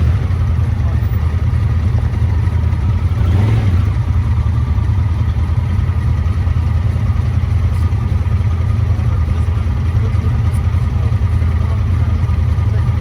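ATV engine running steadily, a low drone that holds the same pitch throughout.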